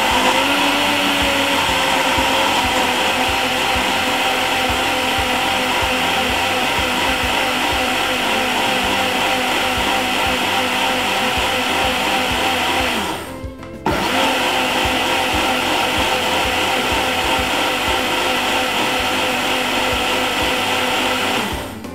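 Single-serve smoothie blender running steadily as it blends Weetabix with cold milk. It cuts out for about a second partway through, starts again, and stops just before the end.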